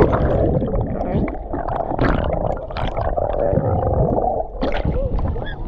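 Muffled underwater rumbling and gurgling of ocean surf, heard from beneath a breaking wave, with a brief splash near the end.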